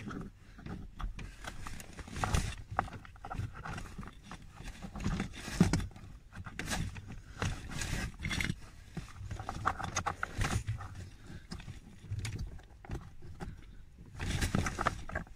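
Handling noise of a plastic wiring connector being fumbled by feel onto the blower motor's final stage resistor behind a dashboard: irregular clicks, taps and rustling of the wiring loom.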